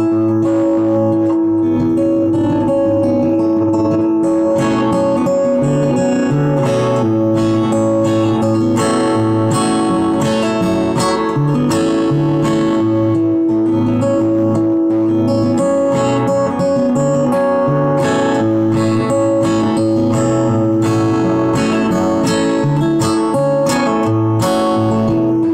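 Acoustic guitar played fingerstyle, picking an instrumental melody over ringing bass notes, with a continuous stream of sharp plucked attacks.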